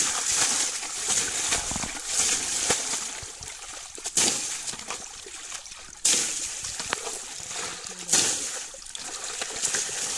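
Water thrown by the tubful over a motorcycle, splashing onto it and falling back into shallow pond water, one throw after another; sharp splashes stand out about four, six and eight seconds in.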